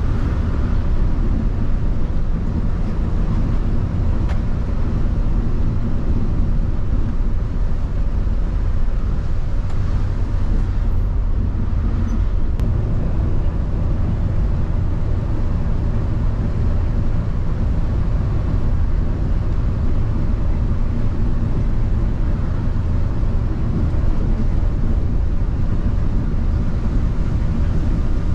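Volvo B8R bus's rear-mounted six-cylinder diesel engine and tyre noise, heard from the driver's cabin at steady cruising speed: a constant low drone.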